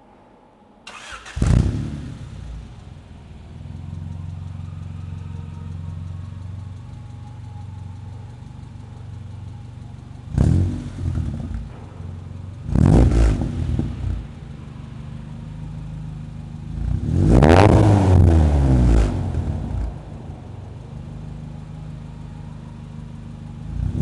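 Honda Civic EJ1 coupe's four-cylinder engine, breathing through a replica Spoon N1 exhaust with no silencer, starts about a second in and settles into a steady idle. It is blipped sharply twice, about ten and thirteen seconds in, then given a longer rev around seventeen to nineteen seconds, and a fresh rev begins right at the end. It sounds inside an underground car park.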